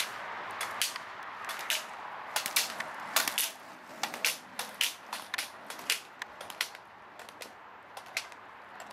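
Inline slalom skater running the gates on asphalt: irregular sharp clacks, a couple a second, as the flexible plastic gate poles are knocked aside and the ski poles strike the road, over the steady rolling of the skate wheels. The clacks are louder in the first half.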